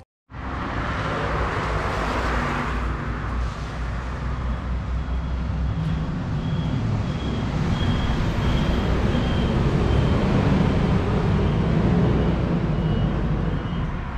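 Steady rumble of a car running, with road and engine noise.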